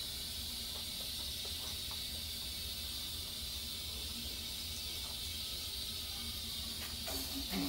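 Steady hiss with a low hum beneath it, at an even level throughout. A short child's vocal sound comes near the end.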